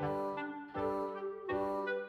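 Instrumental background music: sustained chords, with a new chord starting about every three-quarters of a second in a steady beat.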